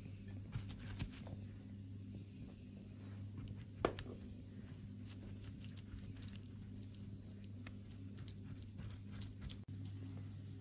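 Soft dabbing and light taps of a silicone pastry brush working over fruit halves in a cut-glass dish, with scattered small clicks and one sharper clink about four seconds in, over a steady low hum.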